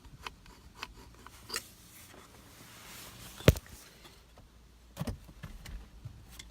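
Screwdriver working in the back of a Saab 9-3 steering wheel to release the airbag's spring clips: light clicks and scrapes of metal on plastic, with one sharp snap about halfway through and a few more clicks about a second later.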